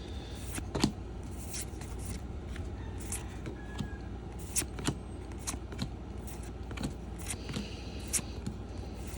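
Trading cards being handled and flipped through by hand: a loose string of light snaps and flicks, one or two a second, over a steady low hum.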